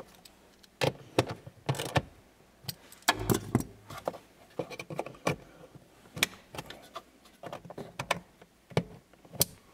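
Scattered, irregular clicks and clinks of an 8 mm socket and ratchet and a blower motor resistor being handled as the new resistor is fitted and bolted into the heater box.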